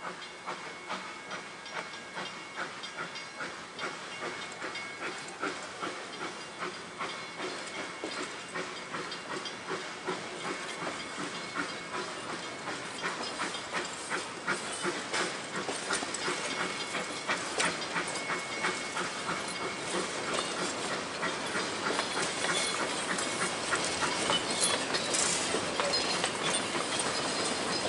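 A narrow-gauge steam train's wooden carriages rolling slowly past, the wheels clicking steadily over the rail joints, with a steady hiss of steam. The sound grows louder as the train draws near.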